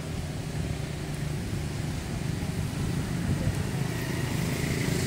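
A steady low engine hum that slowly grows louder.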